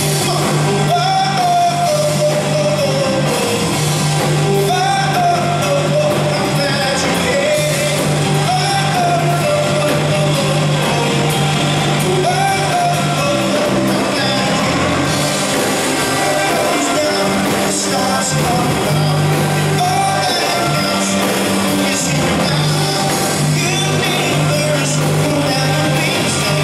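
Live rock band playing: a male lead vocal sung over electric guitars, bass guitar and drums.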